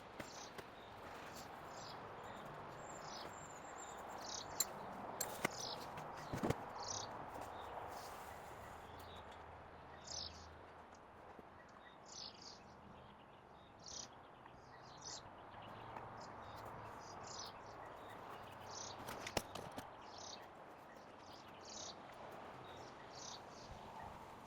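Birds chirping, short high calls repeated every second or two, over a faint steady outdoor background with a few light clicks.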